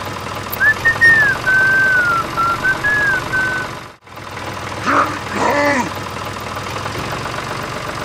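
Tractor engine running with a steady low chugging. Over it, a whistled tone glides up and down for about three seconds, and a short voice-like call comes about five seconds in.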